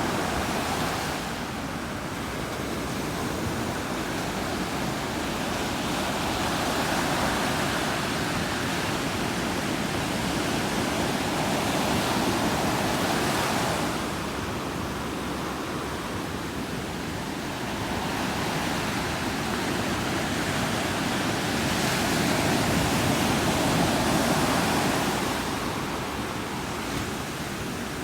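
Ocean surf breaking on a sandy beach: a continuous wash of waves that swells and eases every several seconds.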